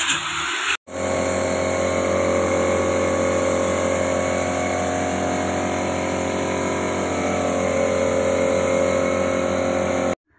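Handheld corded electric power tool running at a steady speed, a constant motor whine that holds unchanged for about nine seconds and stops abruptly near the end.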